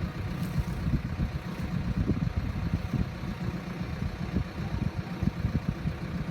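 Heavy earthmoving machine's engine running, a steady low, uneven engine noise with no clear change in speed.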